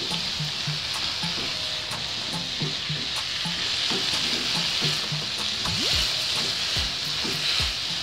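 Shredded cabbage frying in oil in a nonstick wok, sizzling steadily while it is stirred and tossed with a spatula, with scattered scrapes and taps of the spatula against the pan.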